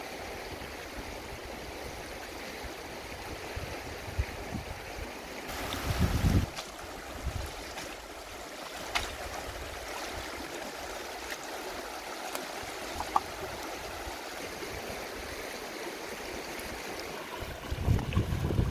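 Shallow river rushing steadily over stones, with a low rumbling gust of wind on the microphone about six seconds in and again near the end.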